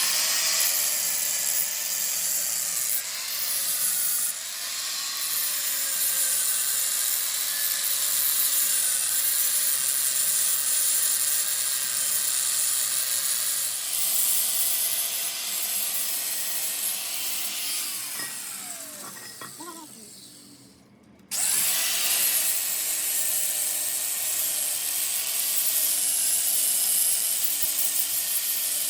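Electric power tool grinding or cutting metal with a steady hiss. About 17 seconds in it winds down, its pitch falling, and stops. It starts again abruptly about 21 seconds in.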